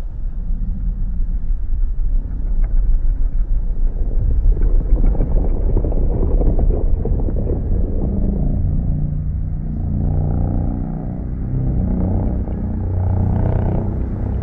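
Custom Godzilla monster sound effect: a deep, continuous rumble that takes on a pitched, growling tone about halfway through.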